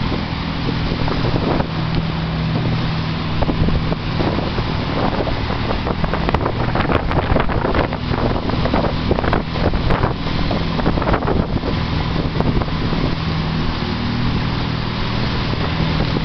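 Motorboat engine running steadily under way, with wind buffeting the microphone and the wake churning behind the boat. Irregular knocks about halfway through as the hull bumps through rough chop.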